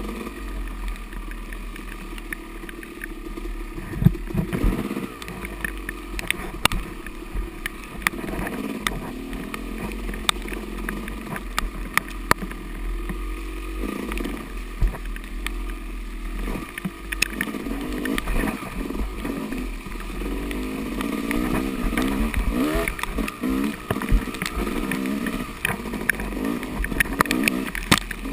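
Yamaha dirt bike engine revving up and down as it is ridden hard through the trail, with frequent sharp knocks and clatter from the bike over rough ground.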